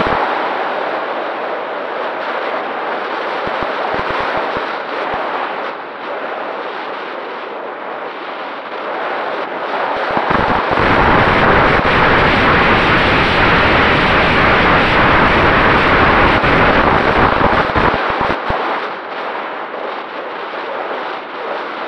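Wind rushing and buffeting over the onboard camera's microphone on an Easy Glider Pro RC glider, gliding with its folding propeller folded back and the motor off. The rush grows heavier and deeper about ten seconds in and eases again about eight seconds later.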